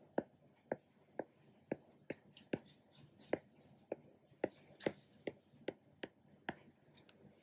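A stylus tip tapping on a tablet's glass screen during handwriting: about fourteen faint, sharp clicks, roughly two a second, one for each stroke.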